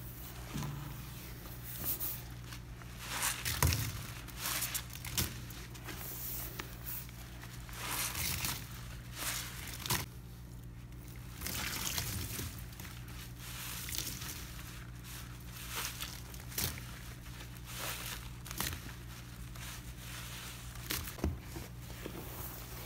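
Rubber-gloved hands squeezing and scrubbing wet, powder-coated kitchen sponges: irregular squishes and gritty crunches with splashes of soapy water. A faint steady hum runs underneath.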